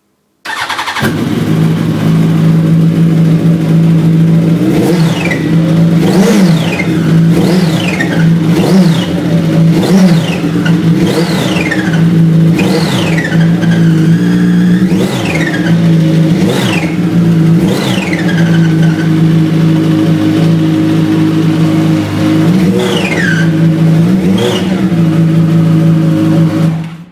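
Yamaha YZF-R1 (RN12) inline-four engine running steadily, with a high squeak that falls in pitch repeating about every one to two seconds: the engine squeak (quietschen) the owner is recording.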